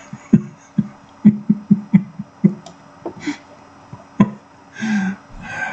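A series of about a dozen sharp, irregular knocks or taps, bunched close together in the first few seconds, followed by a short hissy sound near the end.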